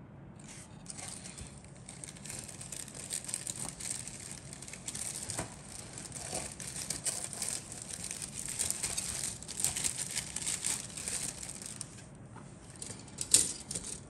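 Crinkling and rustling of a thin plastic bag holding model kit parts as it is handled. A sharp tap near the end.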